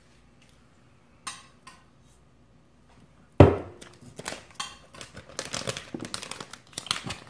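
Cutlery clinking and scraping on ceramic dinner plates, with one sharp knock about three and a half seconds in, then a quick run of clicks mixed with the rustle of a plastic bag of shredded cheese being handled.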